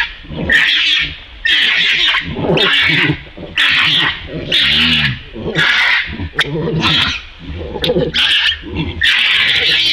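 Baby macaque screaming over and over, about a dozen loud, harsh, high-pitched screams roughly a second apart. These are distress screams from a baby being grabbed and pinned down by an adult macaque.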